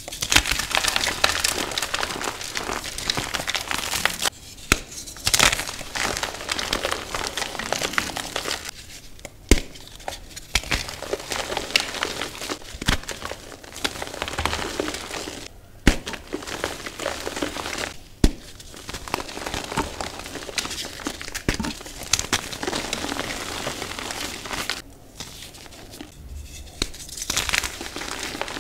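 Green-dyed reformed gym chalk blocks crushed and crumbled in the hands: dense crunching and crumbling with brief pauses, and several sharp snaps as pieces break apart.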